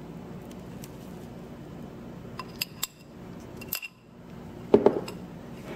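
A metal mesh strainer and a glass mixing bowl clinking together several times, with short ringing knocks, followed by a louder dull thump.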